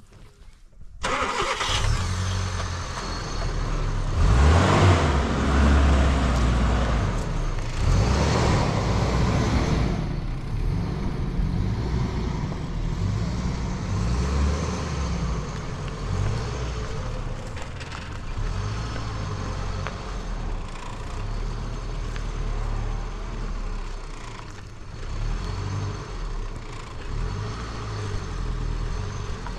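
A motor vehicle's engine starts about a second in, revs up and down, then keeps running steadily.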